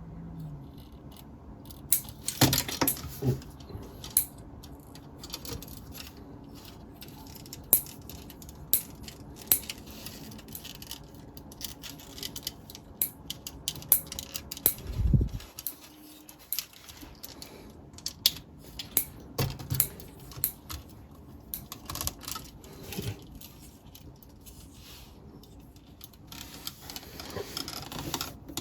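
LEGO plastic bricks clicking and rattling in irregular small taps as the built AT-RT model is handled and its movable parts posed, with a dull thump about halfway through.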